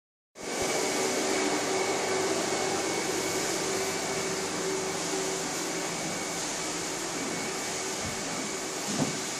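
Carpet-cleaning extraction machine running steadily, its vacuum drawing through the hose and wand, with a steady whine in the noise. A light knock near the end.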